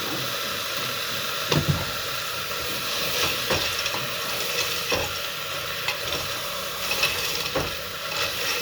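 Food sizzling in hot oil in a pan, with a spatula stirring it and knocking against the pan several times.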